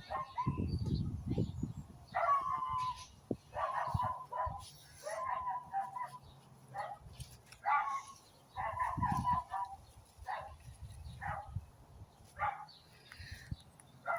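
Bird calls: a run of short, repeated calls, roughly one a second, with low rumbling noise near the start and again about nine seconds in.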